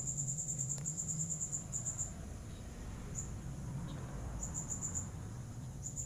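Insect chirping in high-pitched trills of rapid pulses that come in bursts: a long trill at the start, then short ones, with a steady low background rumble.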